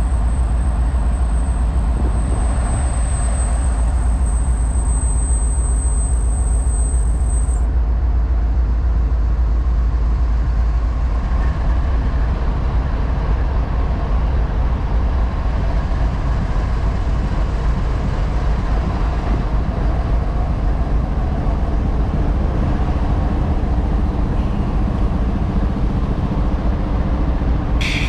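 Union Pacific diesel-electric locomotives running close by with a steady, heavy low engine rumble as the units creep slowly along the track. A thin high whine over the rumble cuts off about eight seconds in.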